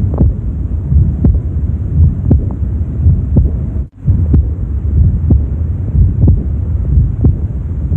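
Heart sounds recorded through a stethoscope at the mid-left sternal border, third intercostal space, of a heart with aortic regurgitation: regular low thuds about once a second, with a blowing murmur between the beats. The sound cuts out for a moment about four seconds in.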